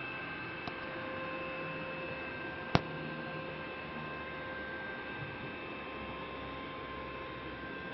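Faint, steady hum made of several fixed tones over light hiss, with one sharp click a little under three seconds in.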